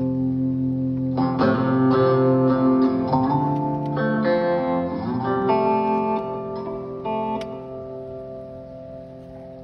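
Live guitar music: guitar chords come in about a second in over a steady held low chord, ring on, and fade away near the end.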